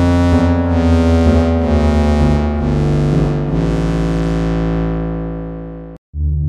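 Sampled Roland Jupiter-4 analog synthesizer (J4 Kontakt library) playing a sustained chord over changing bass notes, its brightness swelling and falling about one and a half times a second, then fading away. After a short silence about six seconds in, a new patch starts.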